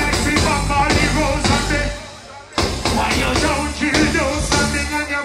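Live reggae band playing, with a singer's voice over bass, drum kit and keyboards. The band drops out briefly about two seconds in, then crashes back in.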